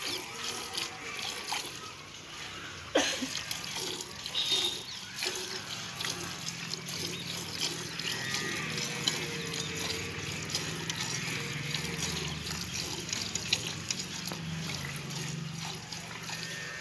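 Jets of buffalo milk squirting by hand into a steel pail that already holds milk, a steady liquid hiss and splatter. There is a single sharp knock about three seconds in.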